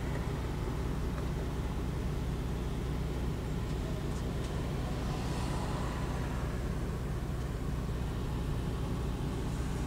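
Steady low drone of an Infiniti G35's V6 engine and the road, heard from inside the car's cabin.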